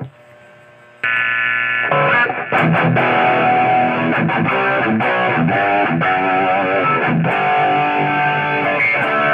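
Maison Les Paul-style electric guitar played through a Marshall MG15 amp: a loud chord struck about a second in, then a run of picked notes and chords, with one note shaken in vibrato midway.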